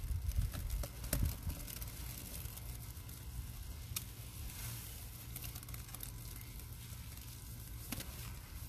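Thick wet powder paste squished and crumbled by hand, soft squelching with scattered small clicks and crackles, over a low outdoor rumble on the microphone.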